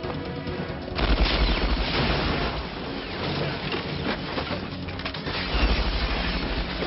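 Movie action sound effects: about a second in, a sudden crash with deep booms and rapid gunfire breaks out over a spray of shattering glass and debris, with a second heavy boom a little past the middle.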